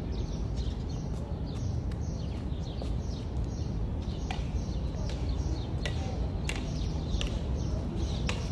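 Outdoor ambience: a steady low rumble with small birds chirping throughout, and a few sharp knocks in the second half as mock swords strike each other.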